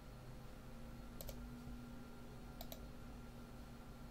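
Computer mouse button clicks: two quick double clicks about a second and a half apart, over a faint steady hum.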